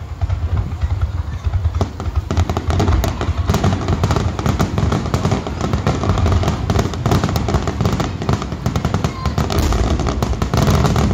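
Aerial fireworks going off in a rapid barrage: deep booms running together under dense crackling, the bursts thickening about two seconds in.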